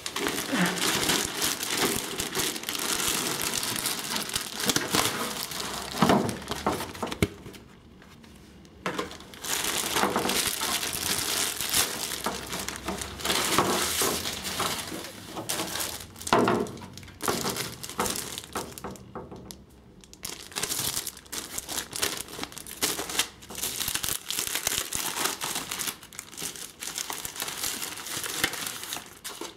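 Clear plastic packaging crinkling and rustling as it is handled and pulled open, with louder crackling bursts around six and sixteen seconds in and a couple of brief pauses.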